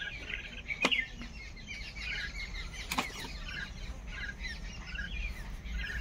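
A flock of mynas chattering, with many short overlapping chirps and whistles, and two sharp clicks about one and three seconds in.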